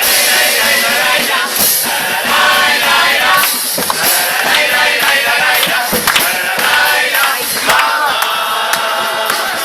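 Murga chorus singing together in full voice, with percussion hits under the song.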